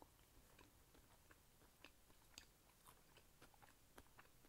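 Faint chewing of a mouthful of mooncake with a mixed-nut filling: soft, scattered clicks a few times a second.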